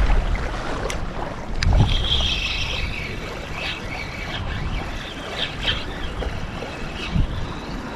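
Strong wind buffeting the microphone, a steady low rumble. Two sharp clicks come about a second and nearly two seconds in, followed by a faint high whirring.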